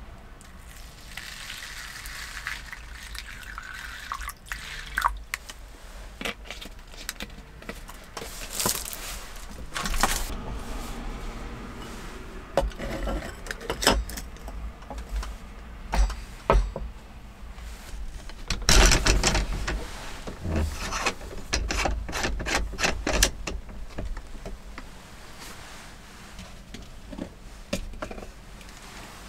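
Water poured from a plastic bottle onto rice in a glazed ceramic rice pot, a trickling splash in the first few seconds. Then ceramic lids are set on and handled, giving a series of sharp clinks and knocks of pottery on pottery and wood.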